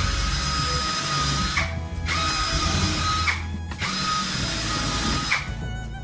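An electric power tool runs in three bursts of about one and a half seconds each, with a steady whine under a loud hiss and short pauses between them.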